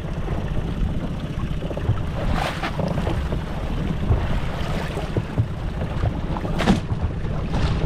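Wind buffeting the microphone on open water, a steady choppy rumble, with a few sharp knocks on the boat, the clearest about two and a half and six and a half seconds in.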